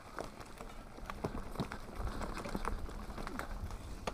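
Mountain bike rolling along a dirt singletrack strewn with dry leaves and twigs: irregular clicks and rattles from the bike over the rough ground, with a low rumble that grows about halfway through.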